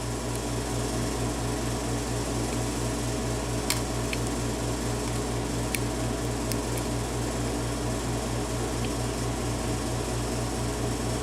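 A steady low mechanical hum with a fast flutter, like a running fan motor, with a few faint light clicks about four to seven seconds in as a lock pick works the pins.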